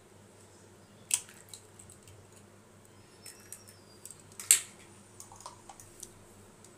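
Eggs being cracked open into a glass mixing bowl: a few sharp clicks and small taps of eggshell and glass. The louder ones come about a second in and about four and a half seconds in.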